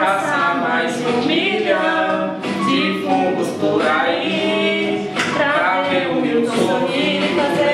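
A man and a woman singing a Portuguese-language song together, voices carrying the melody without a break.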